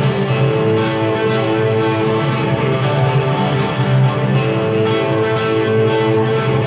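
A live rock band recording playing from a TV, with sustained guitar chords, and a guitar played along with it in the room.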